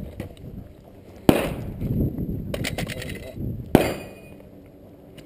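Two gunshots about two and a half seconds apart, each a sharp crack with a short echoing tail, and fainter clicks between them.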